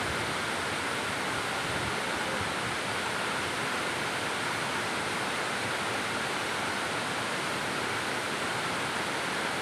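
Steady rush of water falling at a waterfall, an even hiss with no change in level.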